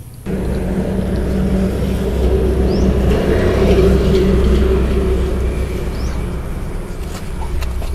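A motor engine going past: a steady low engine hum that swells to its loudest about halfway through and then slowly fades.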